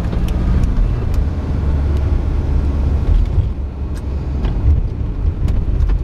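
Taxi car driving along a city road, heard from inside the cabin: a steady low rumble of engine and road noise.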